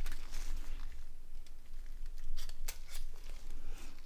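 Small plastic and metal parts of a mobile phone being handled during disassembly, with a scattering of light clicks and scrapes.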